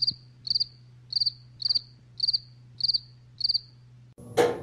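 Cricket chirping: short trilled chirps repeating at an even pace of a little under two a second, over a faint low hum. It cuts off about four seconds in.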